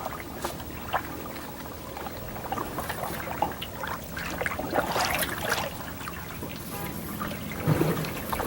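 Canoe paddle working the water, with trickling and dripping and a run of small splashes, busiest about halfway through and again near the end.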